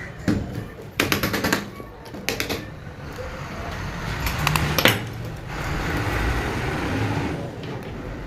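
Small hard objects clicking and rattling in a few quick clusters, then a rushing hiss that swells and fades over the last few seconds.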